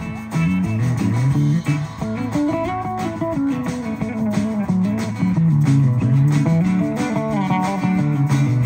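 Instrumental break in a country song: a guitar plays a melodic lead line over bass and rhythm accompaniment.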